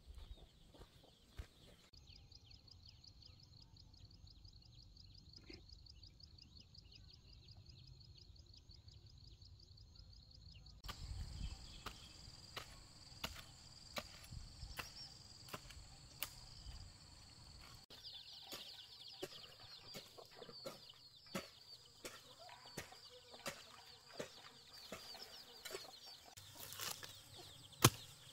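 Faint farmyard ambience: chickens clucking, over a steady high-pitched trill and scattered light ticks.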